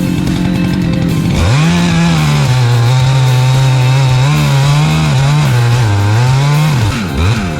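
Chainsaw running at full throttle and cutting. Its pitch drops and wavers as it loads up in the wood. Near the end it revs down and back up.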